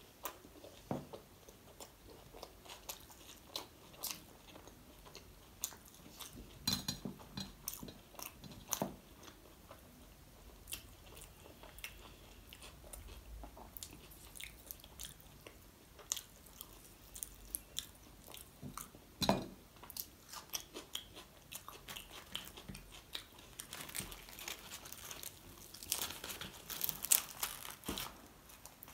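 Close-miked eating of chole bhature (chickpea curry with deep-fried bread): irregular wet mouth clicks, smacks and chewing. Near the end there is a denser run of crackling as the bhatura is torn by hand.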